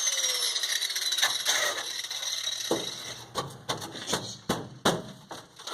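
A power grinder spinning down, its pitch falling, then about seven sharp knocks on metal in the last three seconds.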